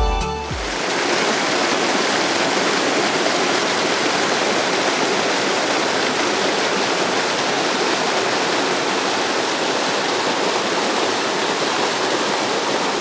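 Waterfall: water pouring steadily over rock, a dense, even rushing noise. Background music cuts out under a second in.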